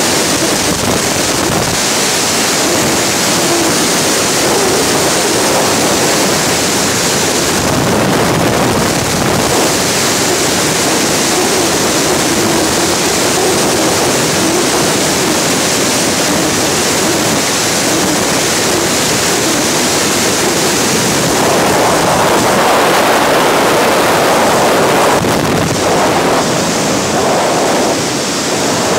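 Loud, steady rush of freefall wind blasting across a skydiver's helmet-mounted camera microphone. The rush grows brighter and a little louder about three quarters of the way through.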